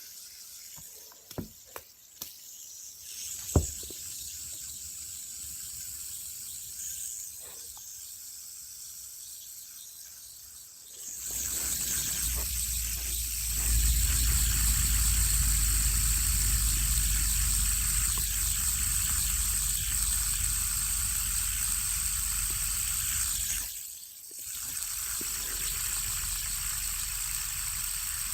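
Fidget spinner being handled and flicked, a few light clicks, then spinning with a steady whirring hiss and low rumble. The sound drops out briefly near the end and picks up again.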